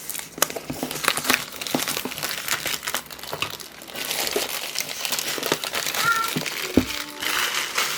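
Packaging being handled and unwrapped, crinkling and rustling with irregular crackles.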